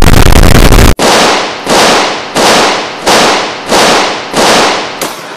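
About a second of very loud, clipped, distorted noise that cuts off suddenly, then seven pistol shots about 0.7 s apart, each ringing away.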